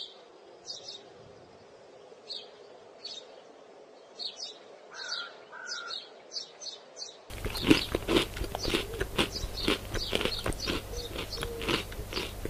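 Faint bird chirps over a light steady hum, then about seven seconds in a sudden loud chewing and crunching sound effect, with many irregular bites and munches.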